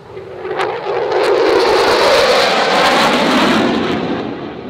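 F-16 Fighting Falcon jet engine on a fast flyby. The noise swells within the first second and holds loud, with a couple of sharp crackles about a second in. Its pitch falls as the jet passes, and it fades near the end.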